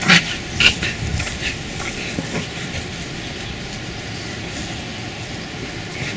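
A few short scuffling and snuffling sounds in the first couple of seconds as beagle puppies tussle in grass, then a steady low rumble of background noise.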